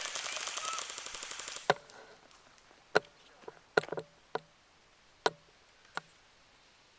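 An airsoft gun firing a rapid full-auto burst lasting about a second and a half, followed by six separate sharp cracks spread over the next few seconds.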